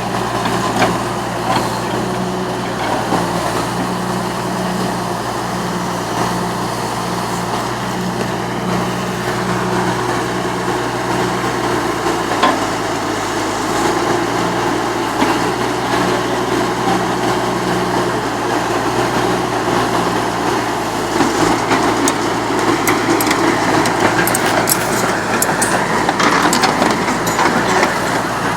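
Excavator's diesel engine running steadily under work, with metallic clattering in the last several seconds.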